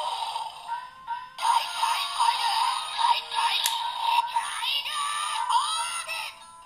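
DX Tiguardora toy's built-in speaker playing a sung electronic song with backing music, thin with no bass. It breaks off briefly about a second in and stops just before the end.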